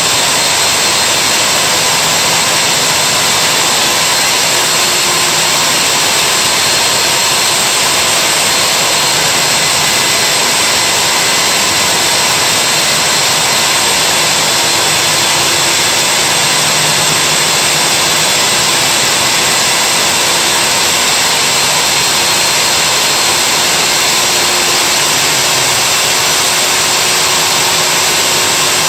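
Wall-mounted Milwaukee core drill running steadily, its core bit cutting into the concrete wall. A loud, unchanging motor-and-grinding noise with a faint steady whine.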